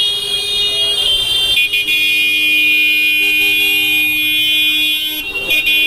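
Vehicle horns honking in crowded street traffic: a long held horn blast of about five seconds, then a shorter one near the end.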